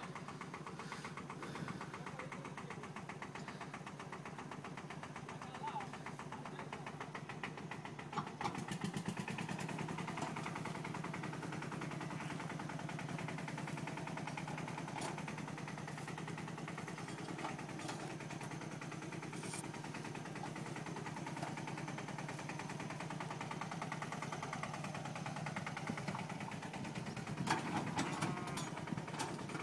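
Small tractor engine running steadily with an even firing beat, getting louder from about eight seconds in. A few sharp knocks come near the end.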